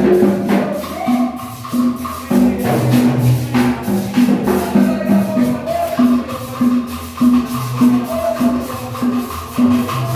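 Dance music with a steady beat, about two beats a second, and a rattling percussion part.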